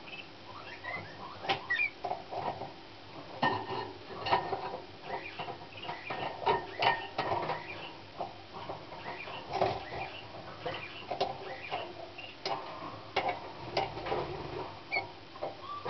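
Young Slavujar song canary singing: a long run of short chirps, clicks and warbled notes with brief pauses, and now and then a short held whistle.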